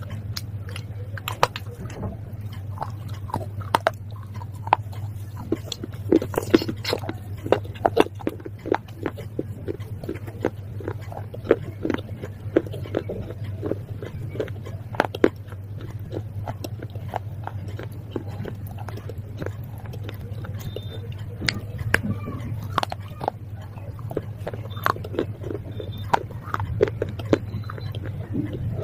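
Close-up biting and chewing of baked clay pot shards and slate pencil pieces: a long, irregular run of dry, sharp crunches and cracks over a steady low hum.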